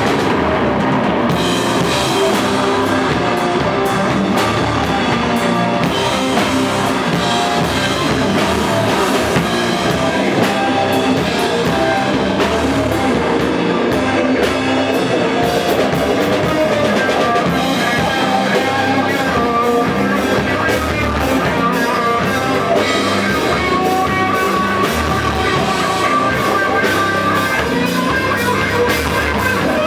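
Live rock band playing: drum kit and guitar, loud and steady without a break.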